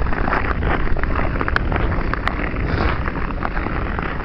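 Ice skate blades scraping and gliding over rough, snow-dusted natural ice in a steady run of short scratches, with wind rumbling on the microphone.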